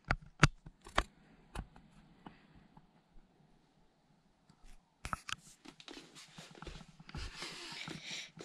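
A few sharp clicks and knocks, then a quiet stretch, then scratchy rustling and handling noise starting about five seconds in and growing louder near the end.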